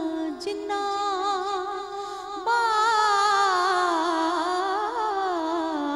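A woman singing Punjabi devotional verse wordlessly between lines, drawing out long, wavering melismatic notes. About two and a half seconds in, a louder held note begins and slides slowly downward.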